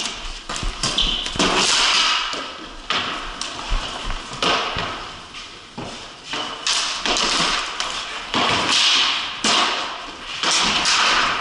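Ball hockey played on a concrete floor: repeated scraping and scuffing swishes of sticks and shoes, broken by sharp taps and knocks of sticks and the ball.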